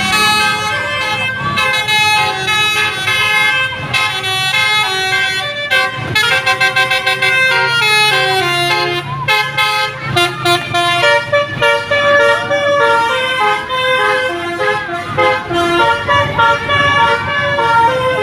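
Klakson basuri, a multi-note musical air horn on a vehicle, playing a melody in stepped sustained notes, with a run of quick repeated notes about six seconds in. An engine runs underneath.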